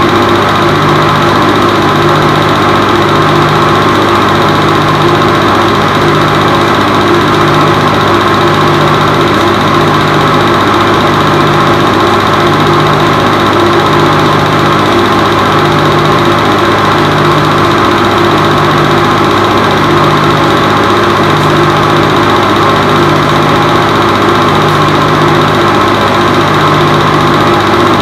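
Film projector running: a steady mechanical whirr and hum with an even low pulse about every one and a half seconds.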